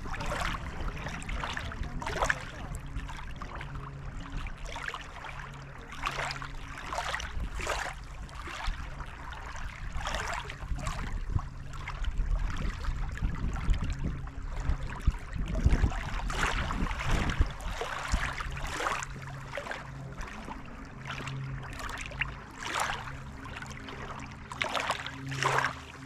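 Small lake waves lapping and splashing irregularly against the shore, over a low rumble and a faint steady low hum.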